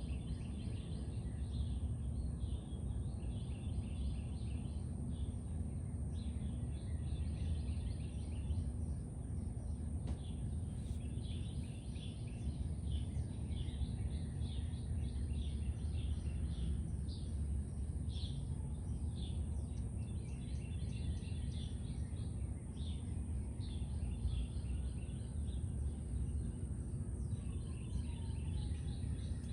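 Outdoor ambience of small birds chirping and twittering almost continuously over a steady low rumble, with a thin steady high tone in the background.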